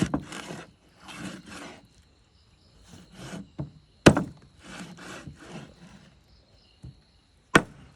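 Knife working a large carp on a wooden chopping block: repeated rasping scraping or cutting strokes, broken by three sharp chops, one at the start, one about four seconds in and one near the end.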